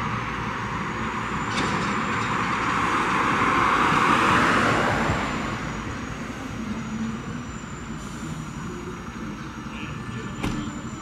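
A motor vehicle driving past, its noise swelling to a peak about four seconds in and then fading away. A single sharp click near the end.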